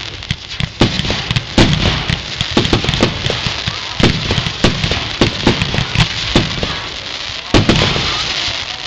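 Fireworks firing in quick succession: irregular booms and pops, several a second, over continuous crackling, with an especially loud bang near the end.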